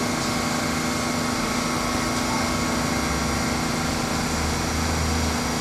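R68 subway train standing in the station with its doors open, its onboard equipment humming steadily, with a lower rumble coming in about halfway.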